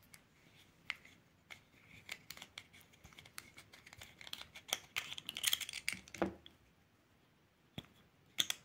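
Adjustable caseback wrench scraping and clicking on a watch's screw-down steel caseback as it is worked loose: a run of small scrapes and clicks that is busiest about five to six seconds in, with a dull knock just after.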